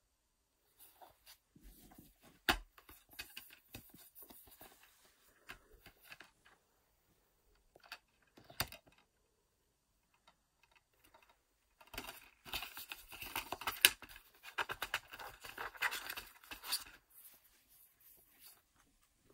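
Plastic DVD case being handled, with a few sharp clicks as it is opened and shut. A denser stretch of rustling and crinkling of paper and plastic comes in the second half.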